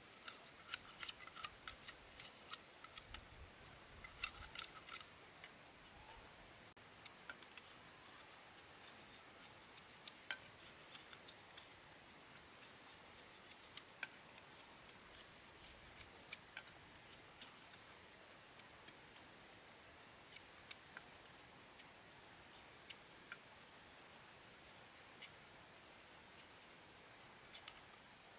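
A run of short, sharp clicks, like small hand-tool work: dense clusters in the first five seconds, then single clicks about once a second.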